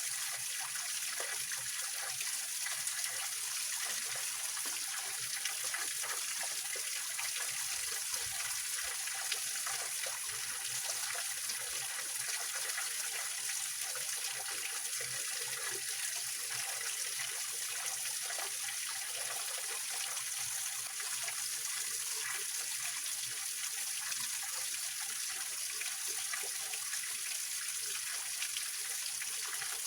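Small waterfall and mountain stream splashing and trickling over rocks, a steady rush of water.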